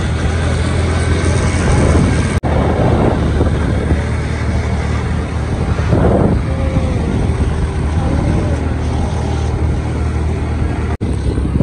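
Wind buffeting a phone microphone over a steady low rumble, the sound of travelling along a road in the open air. The sound drops out briefly twice, about two seconds in and near the end.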